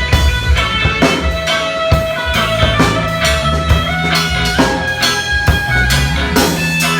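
Instrumental band music: a bass guitar playing a prominent low line over a drum kit, with guitar on top.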